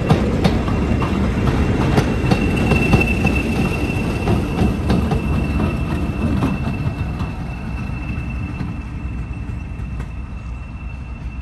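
Diesel-hauled passenger train pulling away: coach wheels clicking over rail joints and pointwork with a steady high wheel squeal on the curve, over a low diesel rumble. The sound fades gradually through the second half as the train draws away.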